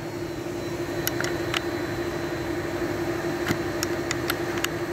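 Steady machine hum carrying one steady tone, from a powered-up CNC milling machine, with a few light clicks scattered through it, several in the second half.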